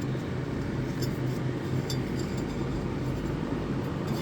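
A steady low hum with a few faint metallic clicks as a mower drive belt is worked around its pulleys by hand.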